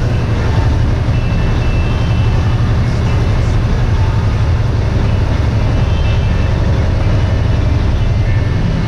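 Dump truck's diesel engine running with a steady low drone and road noise while driving, heard from inside the cab.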